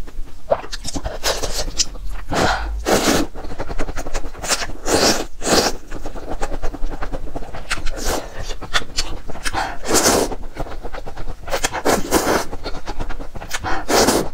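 A person eating close to the microphone: loud mouth sounds of eating in irregular bursts, a fraction of a second each, several times a second at times.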